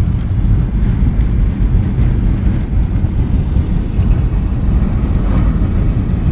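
Steady low road rumble of a moving car, with tyre and engine noise heard from inside the car.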